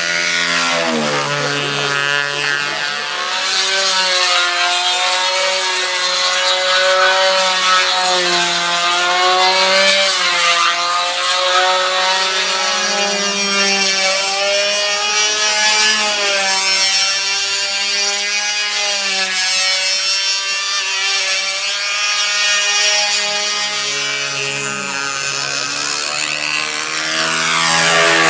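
Engine and propeller of a control-line aerobatic model aircraft running at full speed in flight, its pitch wavering up and down every few seconds.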